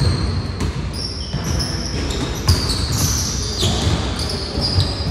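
Basketballs bouncing on a hardwood gym floor, a run of dull thumps, with short high squeaks of sneakers on the court, echoing in the large gym.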